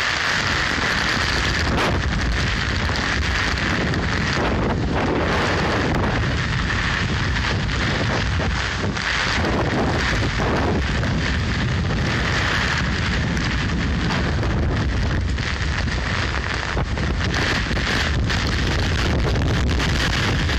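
Typhoon-swollen river running high, a loud steady rush of floodwater, with wind buffeting the microphone.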